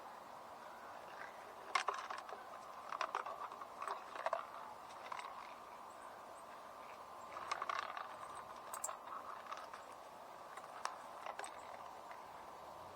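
Irregular light clicks and short metallic rattles of small gear being handled, in several brief clusters, the sharpest click about two seconds in, over a faint steady tone.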